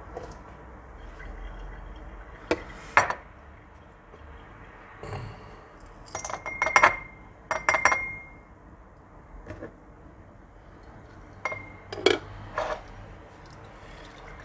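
Laboratory glassware being handled: a glass beaker and a water jug clinking and knocking, in small clusters of sharp clinks, a few of them ringing briefly.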